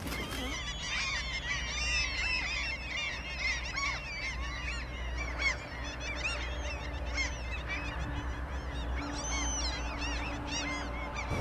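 A flock of birds calling: many short, overlapping chirping calls throughout, over a low steady rumble.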